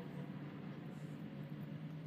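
A low, steady hum with a faint hiss over it; no distinct knocks or clicks.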